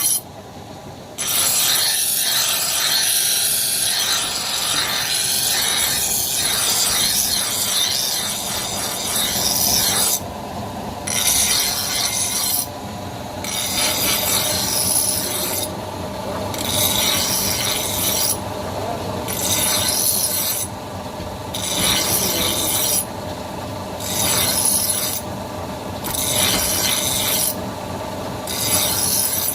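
An axe blade being sharpened, with an abrasive rasping against the steel. It runs unbroken for about the first ten seconds, then comes in long strokes of about two seconds each, with short breaks between them.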